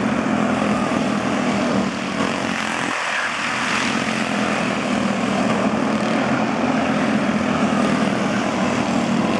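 Quarter midget race cars with small Honda engines running at racing speed on the track, a steady buzzing engine drone. One car comes by close about four seconds in.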